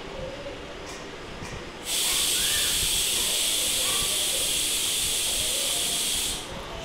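A loud, steady hiss that starts suddenly about two seconds in and cuts off about four and a half seconds later.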